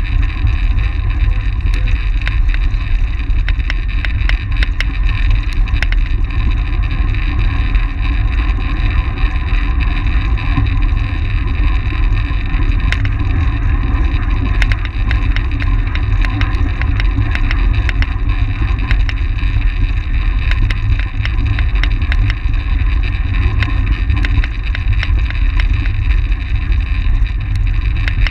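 Wind buffeting and rumbling on a bike-mounted action camera's microphone as a track bike rides at race speed, steady throughout, with scattered sharp clicks.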